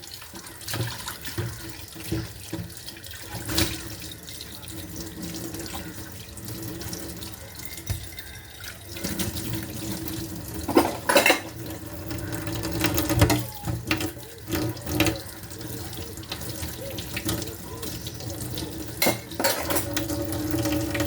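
Running water with scattered knocks and clinks throughout; a low steady hum joins about nine seconds in.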